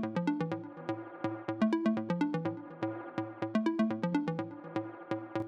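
Electronic background music with a steady beat: short synth notes over a repeating bass line.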